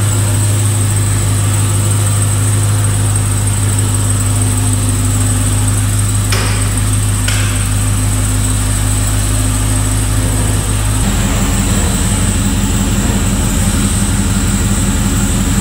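Hellkota Dodge Dakota pickup's V8 engine running at a slow idle while it creeps up the ramps onto the lift, with a steady high whine over a loud low hum. There are two short knocks about six and seven seconds in, and the engine note changes about eleven seconds in as the truck settles on the runways.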